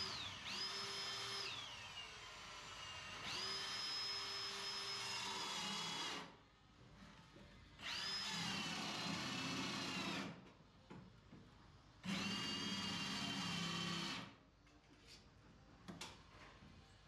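Power drill boring a hole through wood framing, run in four bursts of two to four seconds with short pauses between. In each burst the motor's whine sags in pitch as the bit loads up and struggles.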